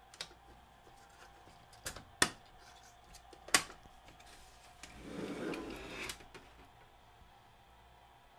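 Sony TC-WA8ESA cassette deck being handled on a workbench: a few sharp knocks and clicks, then about a second of scraping as the unit is slid and turned around.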